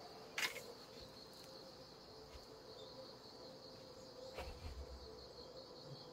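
Faint, steady high chirring of insects, crickets or the like, in the background. A sharp click comes about half a second in, and a soft thump with rustling a little past four seconds.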